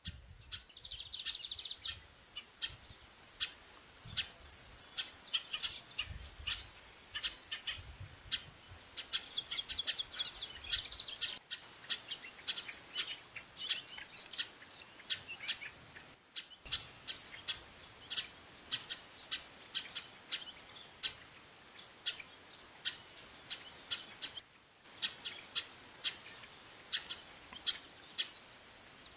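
Female chestnut-capped blackbird (Chrysomus ruficapillus) calling insistently: short, sharp call notes repeated nearly twice a second, with brief gaps. A steady, high insect buzz runs underneath.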